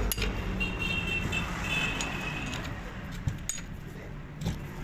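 A steady low rumble with a few light metallic clinks in the second half.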